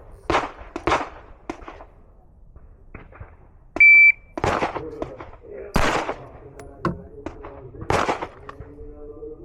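A shot timer gives one short, high start beep a little before the middle. About half a second later comes a pistol shot, and two more loud shots follow over the next few seconds. Several lighter shots come earlier, before the beep.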